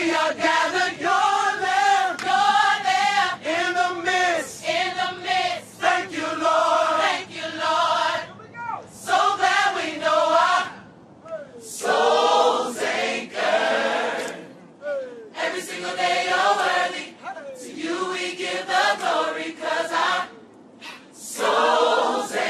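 Gospel choir singing together in short, repeated phrases with brief breaks between them.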